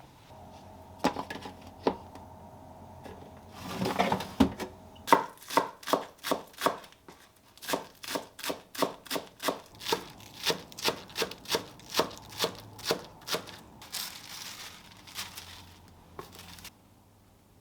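Kitchen knife chopping on a cutting board in a steady rhythm of two to three strokes a second, with brief scraping and handling noises before and after the run of chops.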